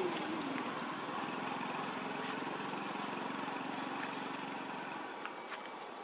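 Steady outdoor background noise with a low engine-like hum that fades after about five seconds, and a few faint clicks.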